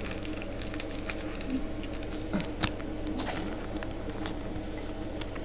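Trading cards and packs being handled: scattered light clicks and rustles, one sharper click a little past halfway, over a steady low hum.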